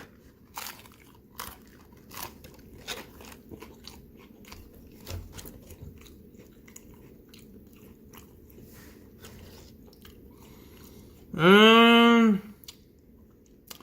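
Close-up crunching and chewing of a Doritos Locos taco's hard, Doritos-flavoured shell, many small crunches over several seconds. Near the end, a short hummed vocal sound.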